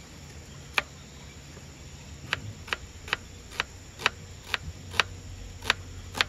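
A series of about nine sharp, irregularly spaced clicks or taps, roughly two a second, over a low steady hum.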